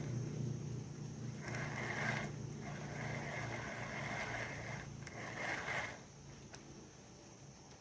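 Reassembled spinning reel being worked by hand: a scraping, whirring mechanical sound in several runs with short breaks, dying down about six seconds in.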